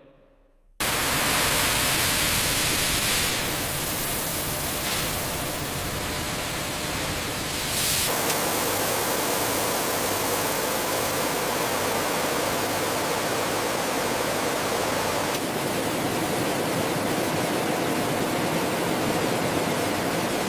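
Steady rushing hiss that starts abruptly about a second in and holds, shifting slightly in tone a few times.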